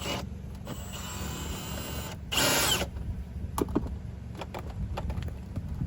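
Cordless power drill or driver backing out trim screws: a short run of motor whine, then a louder burst, followed by scattered clicks and knocks of loosened parts.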